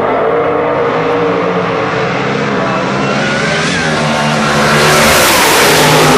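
Drag-racing car running at full throttle down the strip. Its engine noise builds steadily and is loudest about five to six seconds in as the car goes by.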